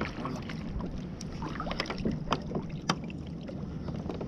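Wind noise on the microphone and water sounds around a fishing kayak, with scattered light clicks and knocks, two of them sharper near the middle.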